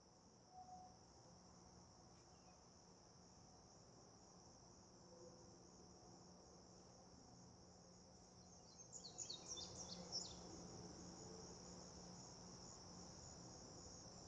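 Faint, steady, high-pitched chorus of insects in the riverbank vegetation, with a quick run of sharp chirps about nine seconds in.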